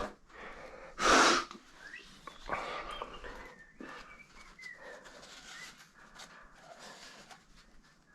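A short, loud burst of noise about a second in, followed by faint scattered rustling and a few thin whistling tones.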